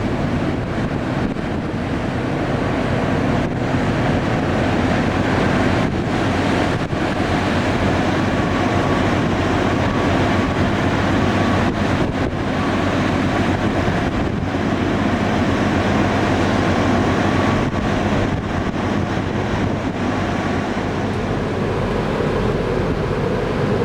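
Force 9 gale wind and rough sea heard aboard a ferry: a steady loud rushing noise, with wind on the microphone and a low drone underneath.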